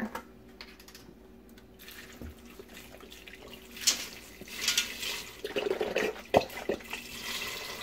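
Chicken broth poured from a carton into a stainless pressure cooker pot holding dry red beans and cubed sausage, splashing; the pouring starts about halfway through.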